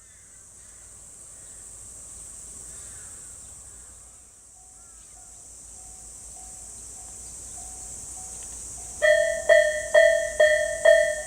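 Steady high insect buzz with a few bird chirps, and a faint, distant crossing bell pulsing from about halfway. About nine seconds in, a Japanese railway level crossing's electronic warning bell (Tobu's 'sound A' tone) starts up loud, striking about twice a second: the crossing has activated for an approaching train.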